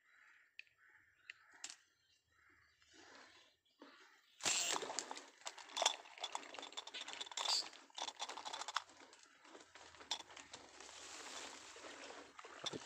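Leaves and stems of bankside plants rustling and crackling close to the microphone, starting suddenly about four seconds in and going on with many sharp clicks; before that only a few faint clicks.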